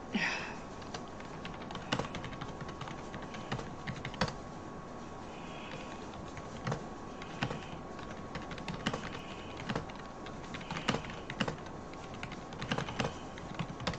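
Irregular soft clicks and taps, like typing on a device, with a few short breathy sounds between them over a faint steady whine.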